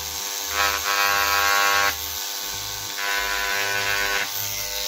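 Parkside mains-powered vibrating engraving pen buzzing as its tip cuts into plastic to touch up engraved letters. The buzz grows louder and harsher twice, about half a second in and again about three seconds in, as the tip bears on the surface.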